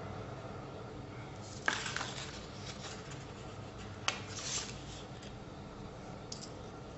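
Alphabet sticker sheet being handled: two sharp crackles about two seconds apart as the glossy sheet is flexed and a letter is peeled off, each followed by a brief papery rustle.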